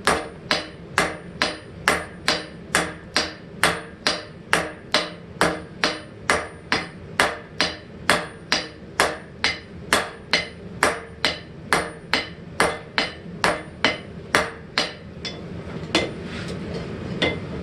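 Hand forging: a roughly 2.5-pound hammer striking hot steel on an anvil in steady blows, about two a second, with a ringing note on each strike, drawing the end of the piece out into a spike. The rhythm stops near the end, with two last blows and a steady hiss rising behind them.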